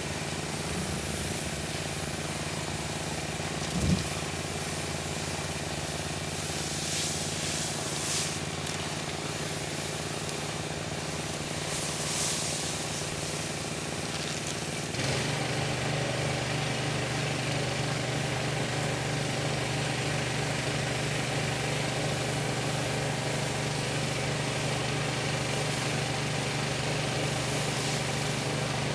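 Gasoline engine of a pressure washer running steadily, with brief hissing now and then; about halfway through it gets louder and holds there.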